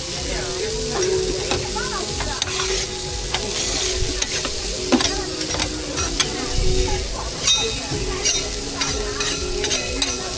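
Burger patties sizzling on a hot flat griddle with a steady hiss, while a metal spatula scrapes and taps on the plate; the quick clicks come thicker in the second half.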